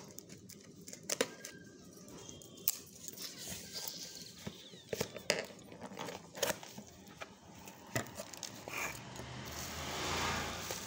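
Cardboard box being handled and opened by hand: scattered taps, clicks and scrapes of the lid and sides, then near the end a longer crinkling rustle as the paper and bubble-wrap packing inside is pulled about.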